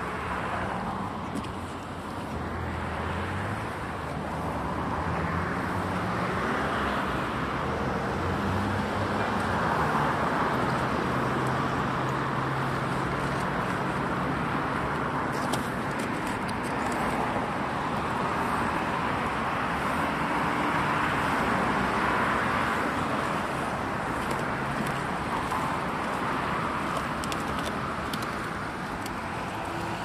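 Road traffic: cars passing on a street, their tyre and engine noise swelling and fading twice over a steady hum.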